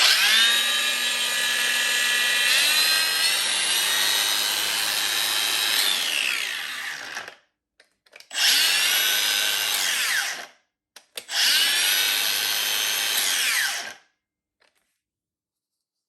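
Makita DGA519 18V brushless cordless angle grinder spinning up three times: a first run of about seven seconds whose whine steps up in pitch a few seconds in as the speed is raised, then two shorter runs of two to three seconds. Each run ends with the whine falling away quickly as the electric brake stops the wheel.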